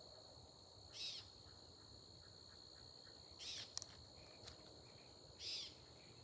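Insects trilling steadily in a high continuous chirr. A short, louder call repeats about every two seconds, and there is a single sharp click about four seconds in.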